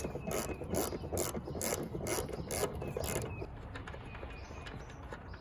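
Socket ratchet on an extension backing off a mounting nut, its pawl clicking in short runs about twice a second, stopping about three seconds in.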